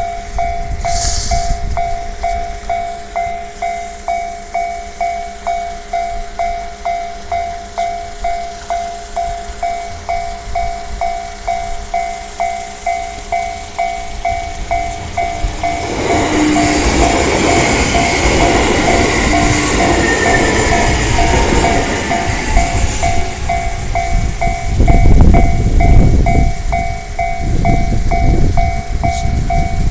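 Japanese level-crossing warning bell sounding a steady, rapid repeating ding. About halfway through, a train comes up and runs over the crossing, its noise building, with a falling tone and then heavy low rumbling near the end.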